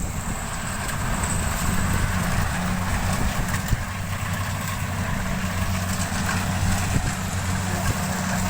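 Kubota rice combine harvester running steadily while harvesting, a continuous low engine hum over machine noise.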